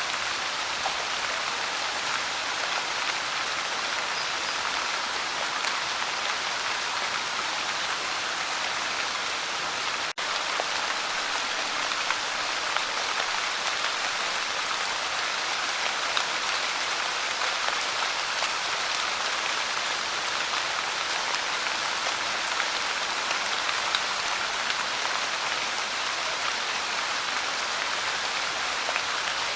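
Light rain falling: a steady, even hiss of rain with scattered small drop ticks, broken by a momentary dropout about ten seconds in.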